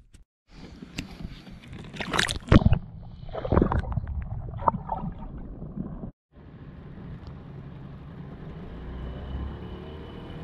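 Water splashing and sloshing at the side of a boat, with a few loud splashes between about two and four seconds in. After a brief break, a steady hiss with a faint high whine.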